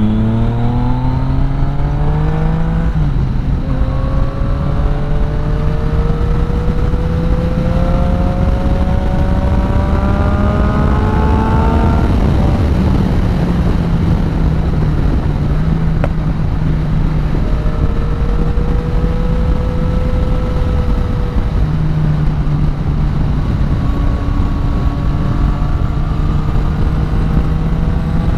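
Yamaha Tracer 900's three-cylinder engine with an Akrapovic exhaust pulling through the gears: the revs climb, drop at a gear change about three seconds in, climb again until another shift about twelve seconds in, then run fairly steady, over a constant rush of wind.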